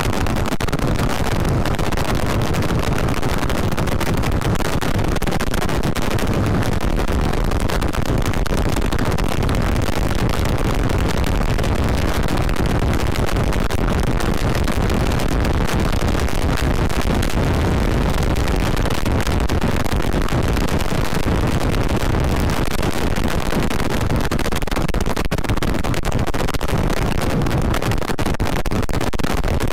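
Wind rushing over the camera microphone with a Yamaha Vixion's single-cylinder engine running underneath, ridden steadily at speed.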